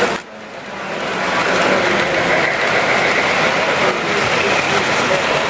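Toy electric trains running on three-rail tinplate track: a steady rumble of wheels and motors. The sound drops away suddenly just after the start and swells back over a second or so.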